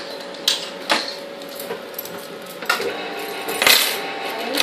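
Countertop electric can opener: a few clicks and knocks as the tin is set in and the lever pressed down, then the motor runs from a little before the middle, turning the tin as it cuts the lid.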